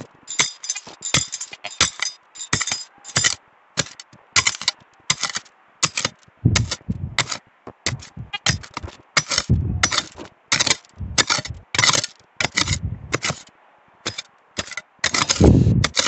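Hand digging tool stabbing and scraping into stony riverbank soil: a rapid, uneven run of sharp scrapes and knocks against pebbles, about two to three a second, with a few duller thuds among them.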